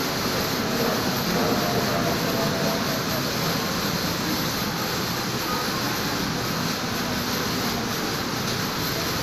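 Steady rushing noise of a classroom's running ceiling fans and air conditioning, even and unbroken, with a faint high whine on top.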